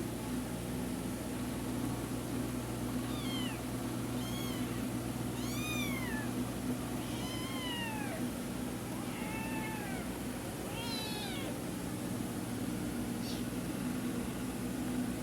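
Kitten meowing repeatedly: about seven short, high-pitched meows, each rising and falling, starting about three seconds in, over a steady low hum.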